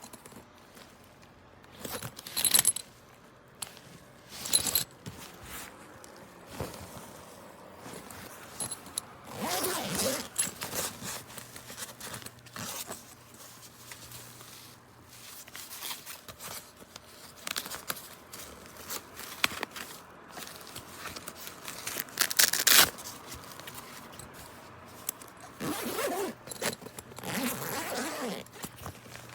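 Zippers on a laptop backpack being pulled open and shut several times, with quieter handling of the bag between the pulls.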